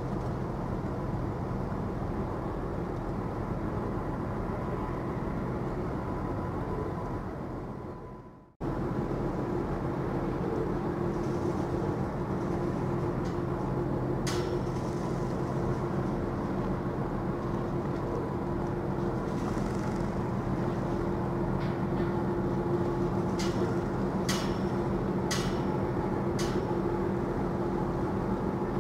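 Steady low drone of a passing container ship's engine with a faint hum in it. It fades away and cuts straight back in about eight seconds in. A few short sharp clicks come in the second half.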